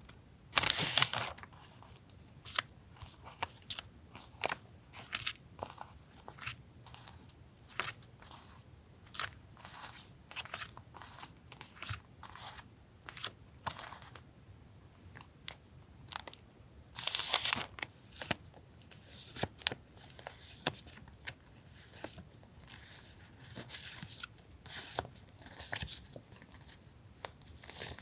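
Paper and plastic packaging being handled: crinkling and rustling, with many short taps and clicks and a few longer rustles, as washi-tape cuts and sticker packets are unpacked.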